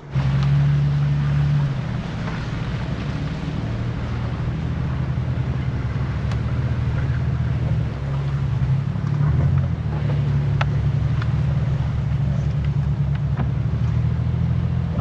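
Off-road 4x4 engine running at low, varying speed under load, its pitch shifting a few times, with a few sharp knocks from the truck.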